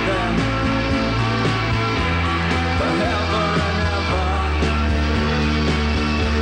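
Rock music with held bass notes and changing chords, laid over the footage.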